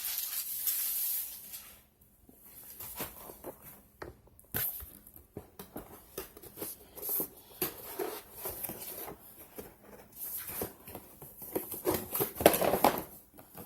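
Paper rustling with scattered handling clicks and light taps, as a drone's manual and paper insert are handled and leafed through, with a louder rustle near the end.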